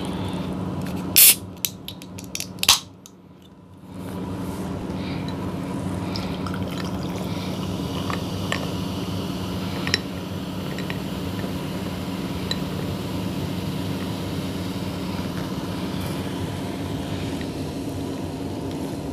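A canned cola cracked open with a sharp pop and hiss about a second in, followed by a second sharp click. Then cola fizzing over ice in a glass: a steady hiss with scattered small ice clicks.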